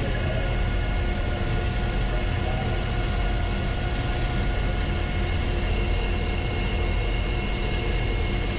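Manual metal lathe running steadily while cutting a thin-walled aluminum tube, a constant machine hum with a few steady tones over the cutting noise. The tube is wrapped in rubber strip to damp chatter, and no chatter is heard.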